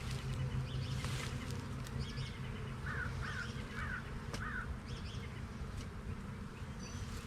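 Honeybees buzzing, a steady low hum from many bees of a colony disturbed by a hive removal.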